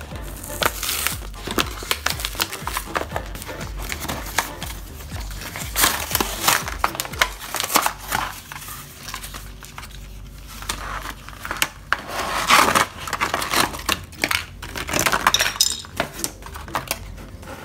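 Clear plastic blister packaging of a toy slime kit being torn open and handled: irregular crackling and crinkling of stiff plastic and cardboard, with light knocks of plastic containers against the table.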